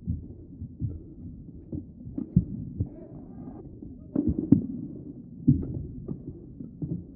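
Badminton rally: rackets striking the shuttlecock and players' feet thudding on the court. The sound is a string of sharp, muffled hits at uneven intervals, loudest about four and a half seconds in.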